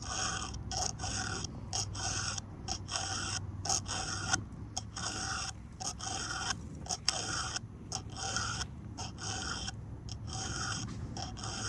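A chainsaw file rasping across the cutter teeth of a Stihl 362 chain: a steady run of short scraping strokes, about one to two a second, as each tooth is sharpened by hand.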